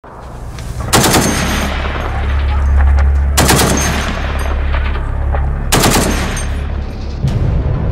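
Three short bursts of fire from an M2 Browning .50-calibre heavy machine gun, about two and a half seconds apart, over a steady low rumble.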